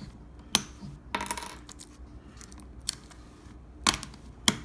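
Several sharp, light clicks and taps of small hard plastic packaging pieces being handled and set down, with a brief rustle of wrapping.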